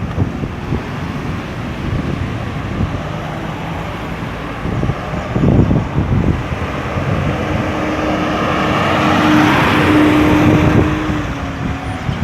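Road traffic moving around a roundabout, with wind buffeting the microphone. A vehicle passes close with a steady engine hum, loudest about nine to eleven seconds in.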